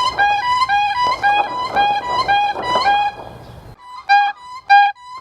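An animal's call: short pitched notes repeated evenly, about three a second. The background noise behind it drops away suddenly about three and a half seconds in.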